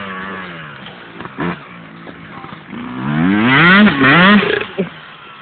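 Yamaha YZ250 two-stroke dirt bike engine riding off across the field. It is quieter for the first couple of seconds, then from about three seconds in it revs up several times, the pitch climbing and dropping as the throttle is worked, before dropping off near the end.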